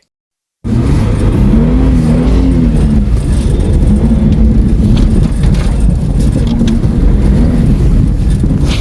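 Holden VS Commodore's 3.8-litre Ecotec V6 running loud under load, its pitch rising and falling as it is revved, over a heavy low rumble. It cuts in suddenly just under a second in.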